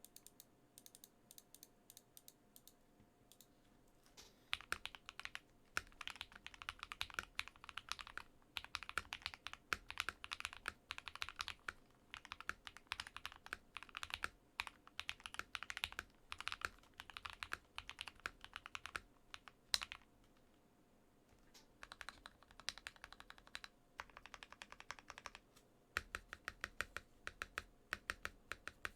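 Typing on an NK65 mechanical keyboard fitted with lubed Akko Rose Red linear switches. A few slow, separate keystrokes come first, then fast continuous typing from about four seconds in, with a short pause about two-thirds of the way through.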